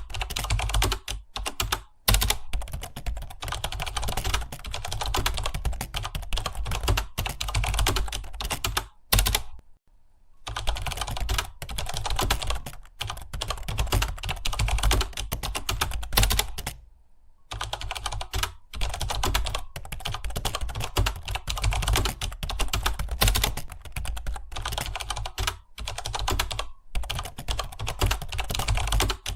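Computer keyboard being typed on fast and continuously, a dense clatter of keystrokes. It breaks off for about a second a third of the way in, and again briefly past the middle.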